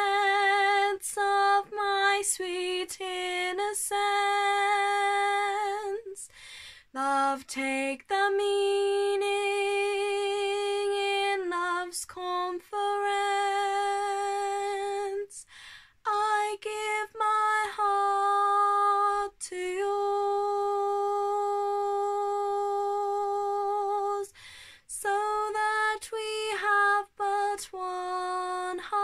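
A woman singing unaccompanied, holding long steady notes in phrases broken by short pauses for breath.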